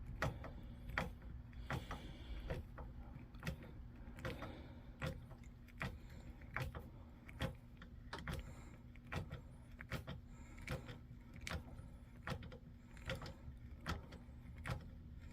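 A wood screw being turned into a drilled hole in a wooden gun stock, cutting its threads in the wood: a series of short clicks and creaks, roughly one every half second to second, as it is turned in stroke by stroke. A steady low hum runs underneath.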